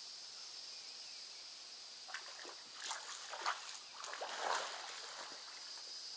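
Shallow river water splashing and sloshing in a few short bursts over about three seconds, loudest near the middle, as a large turtle at the edge of a boat ramp goes back into the water. A steady high insect buzz runs underneath.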